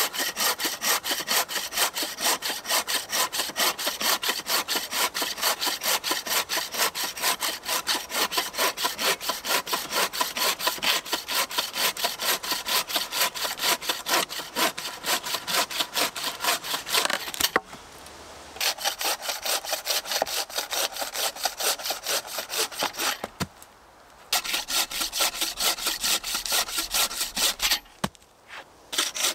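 Wooden-framed bow saw cutting through a freshly felled branch with fast, even back-and-forth strokes. The sawing stops briefly three times in the latter part.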